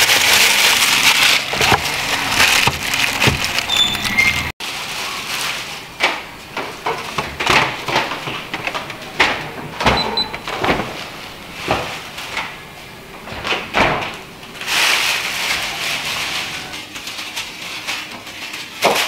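Crinkling and rustling of packaging being handled, cut off suddenly about four and a half seconds in, then scattered short knocks and rustles of kitchen items being picked up and set down.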